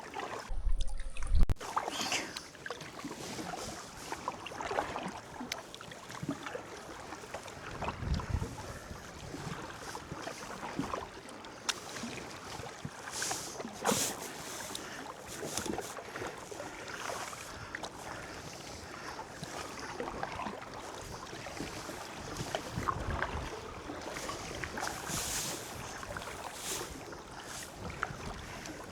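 Kayak paddling on a river: paddle blades dipping and splashing in irregular strokes, with water running off the blades.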